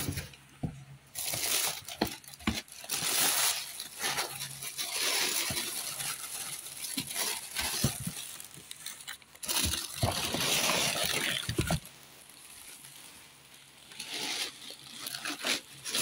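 Tissue wrapping paper crinkling and rustling in bursts as it is handled inside a cardboard shoe box, with scattered light clicks and knocks and a short lull about three-quarters of the way through.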